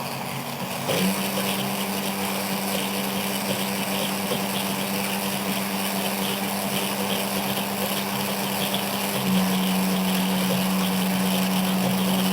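Electric blender motor running steadily, emulsifying oil into egg yolks, lemon juice and mustard to make mayonnaise. It switches on about a second in with a steady hum, which climbs a little in pitch and gets louder near the end as the mix starts to thicken.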